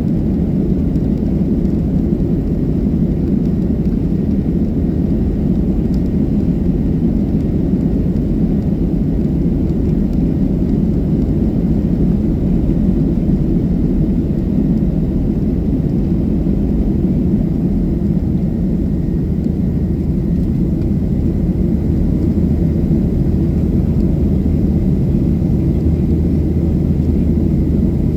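Boeing 737-700 jet engines during takeoff: a steady, deep rumble that holds an even level throughout, with a faint thin tone above it.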